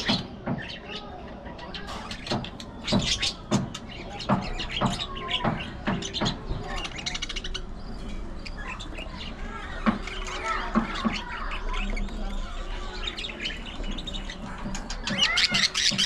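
A flock of budgerigars chattering, a steady stream of short chirps, squawks and warbling calls, with a louder burst of calls near the end.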